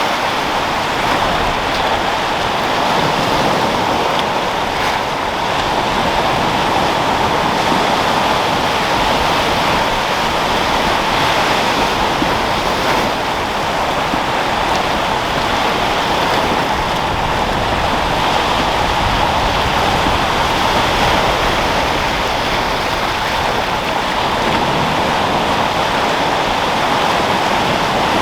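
Sea waves washing and foaming, a continuous loud rush of surf with wind, with no distinct breaks or crashes.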